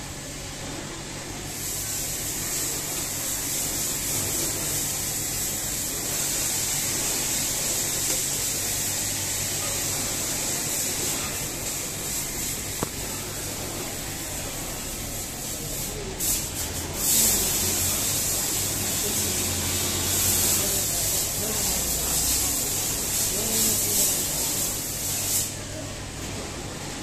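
Brother industrial single-needle sewing machine running as it stitches cloth, a steady high-pitched whirr that starts about a second and a half in, breaks off briefly a couple of times past the middle and stops near the end. A low steady hum runs underneath.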